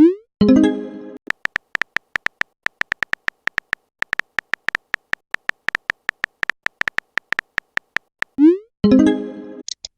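Chat-app sound effects: a fast run of electronic typing clicks, about five a second. These are broken twice, at the start and again near the end, by a quick rising swoop and a short chiming tone, the sound of a message being sent or arriving.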